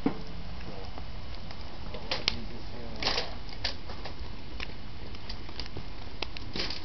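Wood and cardboard fire burning in a metal fire bowl, crackling with irregular sharp pops, the loudest a little after two seconds in.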